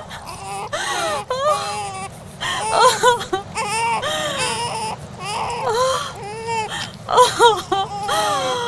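A baby crying: a string of high, wavering wails, each rising and falling in pitch, with short breaks between them.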